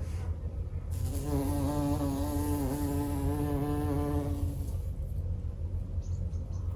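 A flying insect buzzing for about four seconds, starting about a second in, a steady drone that wavers slightly in pitch. A steady low rumble runs underneath.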